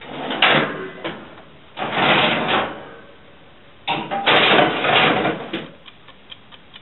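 A springform cake tin being put into a kitchen oven: three bursts of scraping and clunking. Then a wind-up mechanical kitchen timer starts ticking, about four ticks a second, near the end.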